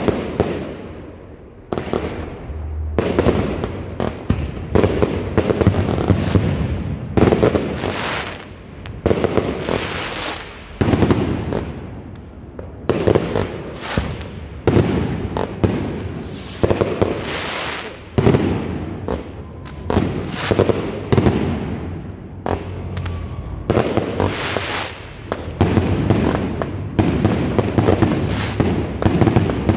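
Consumer aerial fireworks going off overhead in a steady string of launch thumps and bursts, about one a second.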